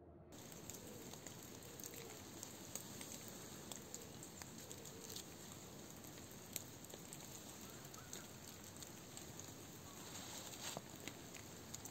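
Faint outdoor ambience in winter woods, with scattered small crackles and rustles from twigs and bark being handled. The crackles come a little more often about ten seconds in.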